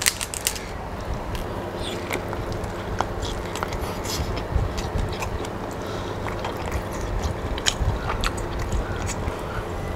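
A lobster shell pulled and cracked apart by hand gives a quick run of sharp crackling clicks at the start. Close-miked chewing of the lobster meat follows, with scattered small clicks and smacks over a steady low hum.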